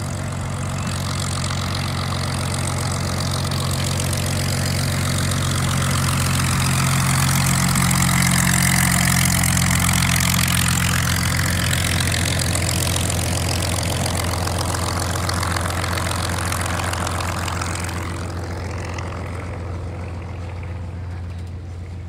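Curtiss P-40 Warhawk's V12 piston engine running at low taxi power as the fighter rolls past on the runway. It grows louder to a peak about halfway through, then fades as the plane moves away.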